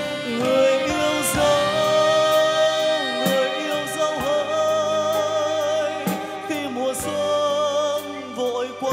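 Live band playing an instrumental interlude of a slow ballad: a lead melody of long, wavering held notes over piano, strings and drums.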